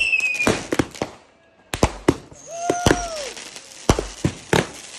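Fireworks going off: a rapid run of sharp bangs with a short lull about a second and a half in. Whistling tones sound among them, a falling whistle right at the start and a high whistle near the middle.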